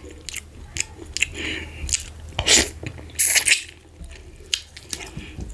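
Close-up eating sounds: wet mouth clicks and smacking as fufu with slimy ogbono soup is chewed, with two louder wet bursts about halfway through. A faint steady low hum runs underneath.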